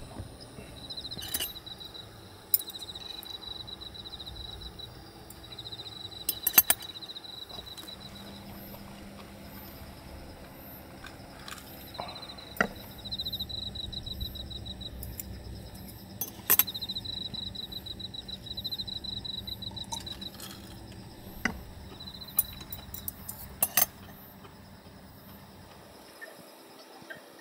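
Insects chirping outside in repeated pulsed trills, with occasional sharp clinks and taps from chopsticks and a glass of iced drink.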